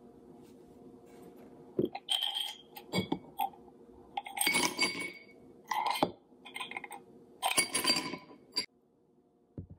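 Ice cubes tipped from a plastic container into a glass tumbler, clinking against the glass and each other in several quick bursts over a few seconds.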